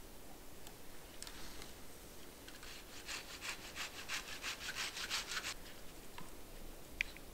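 Hand saw cutting through wood: a quick, even run of about a dozen strokes, four or five a second, in the middle, with a few scattered strokes before it and a sharp click near the end.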